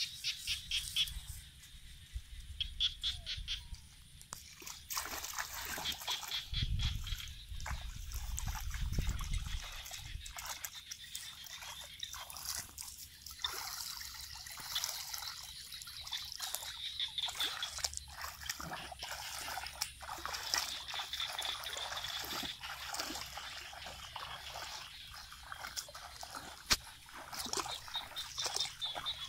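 Feet wading through shallow water in a flooded rice paddy, splashing and sloshing with each step from about five seconds in. Rapid pulsing chirps run in the background, and there is a low rumble a few seconds in.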